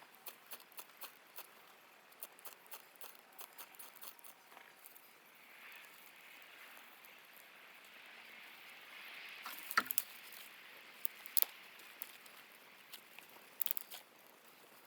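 Irregular small clicks and crackles, with a few sharper, louder pops around the middle and near the end, over a faint hiss that swells in the middle.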